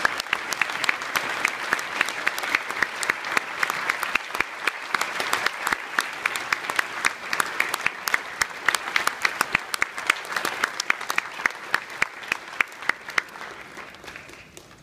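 Large audience applauding, a dense patter of many hands with sharp, louder claps from someone close by; the applause dies away near the end.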